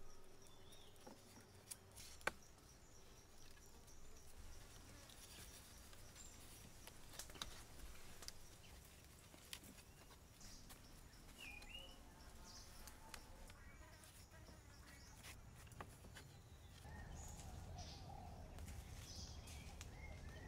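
Quiet forest ambience with a few short bird chirps and scattered light clicks and knocks of wooden sticks and vine strips being handled and bent into a frame; a low rumble comes up near the end.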